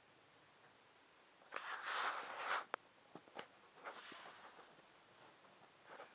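Quiet rustling about a second and a half in, followed by a few light clicks and taps: handling noise from a handheld camera being moved.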